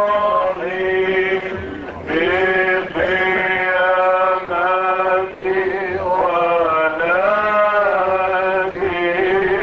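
Chanting voice singing in long held notes that slide up and down in pitch, in phrases broken by short pauses.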